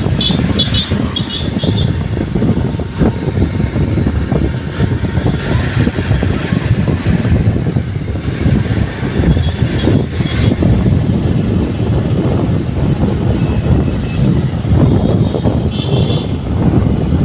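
Motorcycle riding along a road: a steady low rumble of wind buffeting the microphone and the engine running. A few short high-pitched peeps come in the first couple of seconds and again near the end.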